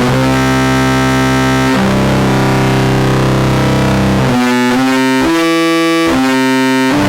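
Loud, noisy electronic music: sustained droning chords that change about two seconds in, then step through a handful of shorter notes in the second half.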